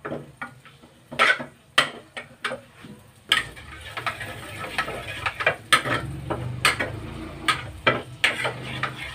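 A metal spoon scraping and tapping a nonstick frying pan as butter is stirred over the flame. From about three seconds in, the melting butter starts sizzling steadily under the scrapes.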